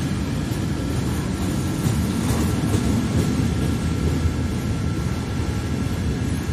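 Container wagons of an intermodal freight train rolling past at speed: a steady rumble of wheels on the rails.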